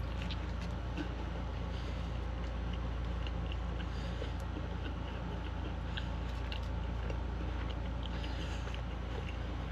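Close-up biting and chewing of a chicken Crunchwrap with a Cheez-It cracker inside: small crisp crackles scattered throughout, over a steady low hum.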